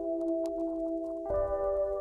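Background music: soft sustained chords held steady, moving to a new chord a little past halfway.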